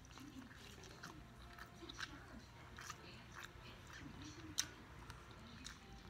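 Faint mouth sounds of a person chewing fried perch, with small wet clicks while fingers pick the meat off the skin. One sharper click comes about two-thirds of the way through.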